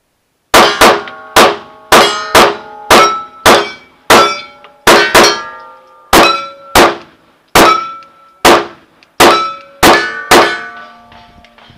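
Rapid pistol fire at steel targets, about twenty shots over ten seconds starting about half a second in, each report followed by the ringing clang of a struck steel plate. The ringing fades out after the last shot, about a second before the end.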